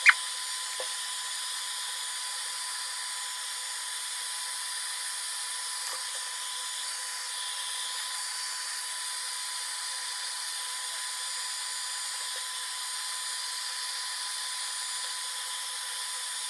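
Small, cheap hair dryer blowing steadily, heating the adhesive under a phone's screen glass. There is a sharp click right at the start.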